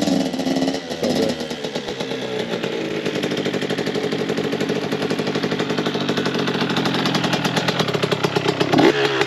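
Two-stroke dirt bike engine running at low revs with a steady putter, the bike ridden on little throttle, as if it were a four-stroke.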